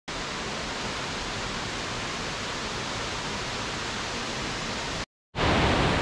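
Steady rush of a waterfall, an even noise with no tones in it. It cuts out for a moment about five seconds in and comes back louder.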